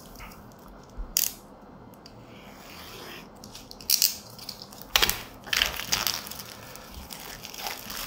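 Hands handling a smartphone retail box and its packaging: scattered crackles, scrapes and rustles of cardboard and plastic, with sharp bursts about a second in and around four and five seconds in.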